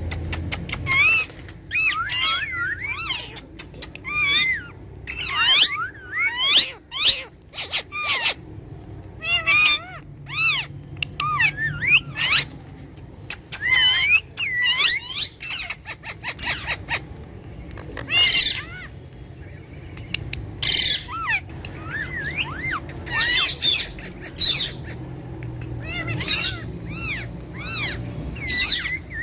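Pet parrots calling over and over: a long run of short, wavering high chirps and squawks with brief pauses between them.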